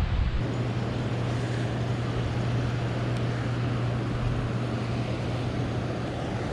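A steady, low motor hum holding one pitch, under a haze of wind and water noise.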